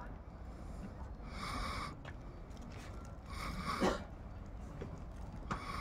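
A person breathing close to the microphone: three hissy breaths, about one every two seconds.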